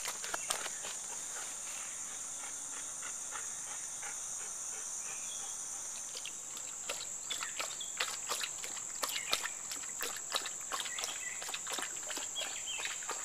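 Steady high-pitched drone of a chorus of insects. Scattered clicks and rustles join in, coming more often in the second half.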